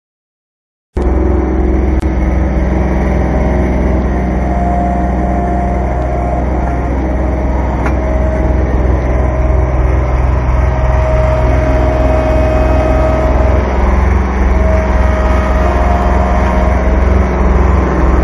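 Kubota B2320 compact tractor's three-cylinder diesel engine running steadily at working revs, cutting in suddenly about a second in, with a higher whine that comes and goes over the engine note.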